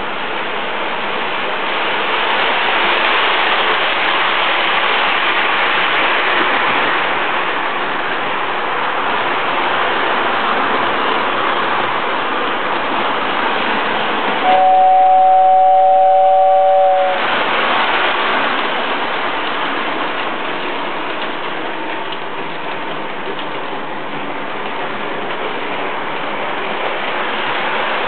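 Toy electric train running on its track with a steady whirring rattle. About halfway through it sounds a two-note horn, held for about two and a half seconds.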